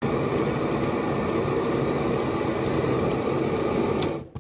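Gas burner of a small automatic wok roaster burning with a steady rushing flame, with a faint high tick about twice a second from the ignition electrode sparking. The flame sound cuts off suddenly just after four seconds as the gas is shut off.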